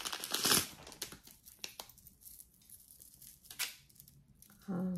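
Thin wrapping crinkling in the fingers as a small piece of jewelry is unwrapped: a burst of crinkling in the first half second, then scattered small rustles and one more crinkle later on. A short hum of a voice near the end.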